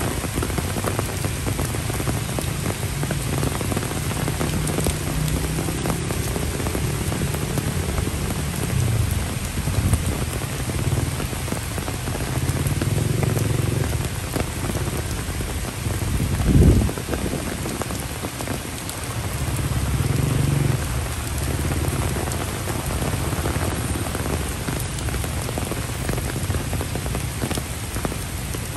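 Steady rain falling on a brick path, grass and broad tropical leaves. A low rumble swells and fades every few seconds underneath it, and a brief low thump comes a little past halfway.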